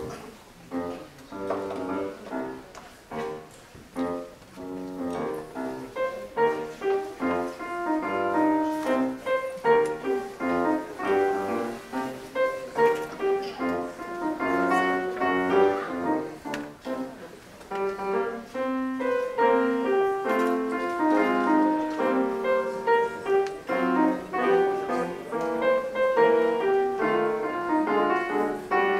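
Grand piano played solo: a quick stream of short notes, softer for the first few seconds and then fuller and louder.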